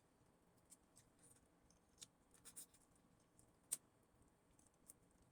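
Near silence with faint, scattered soft clicks and taps of someone eating, with one sharper click a little before four seconds in.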